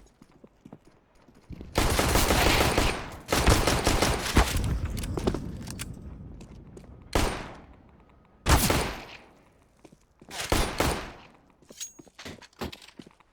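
Glock pistol shots fired in rapid strings, the densest and loudest in the first half, each string trailing off in a fading echo. A few shorter strings follow later.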